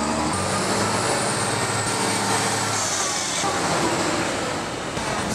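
Diesel engine of a 2004 Mack Granite roll-off truck, 335 hp, running as the truck drives past.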